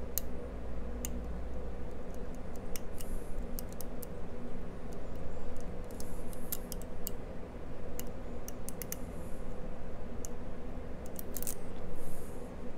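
Hook pick working the pins of a Codkey Locksys L52 dimple cylinder lock: scattered small metallic clicks and brief light scrapes, over a steady low hum.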